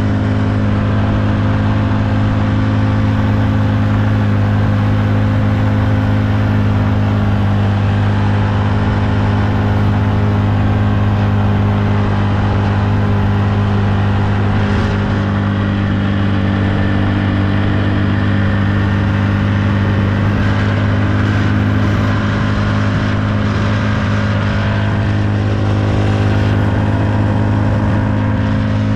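Steady drone of a vehicle driving along the road, heard from inside the cab: constant engine hum and road noise.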